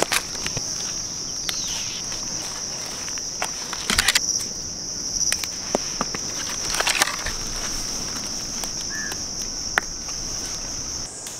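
Steady high-pitched drone of insects, with scattered crackles and snaps of dry leaf litter and twigs being disturbed on the forest floor, a cluster about four seconds in and another around seven seconds.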